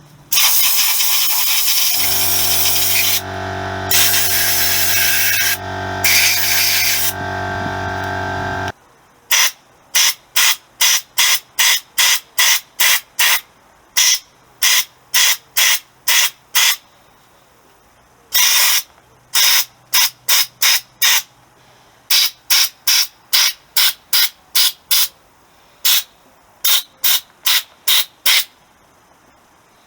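Gravity-feed soda blaster spraying baking soda on compressed air: a continuous hiss at first, with the air compressor's motor running under it from about two seconds in, both stopping together near nine seconds. After that the blaster is fired in short blasts, about two a second, in runs with brief pauses.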